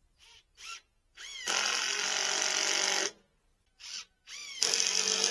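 Electric motor of a handheld power tool, pulsed with a few quick trigger taps, then spinning up and running steadily for about a second and a half. It stops, gets one more short tap, and runs again near the end.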